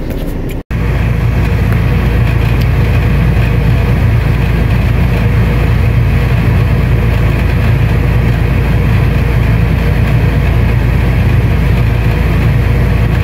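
Steady engine and road noise of a vehicle driving, a loud low rumble under a constant hiss that holds unchanged after a brief cut under a second in.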